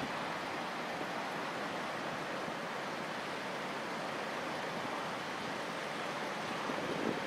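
Steady, even rushing of wind and sea water, with a couple of brief wind gusts buffeting the microphone near the end.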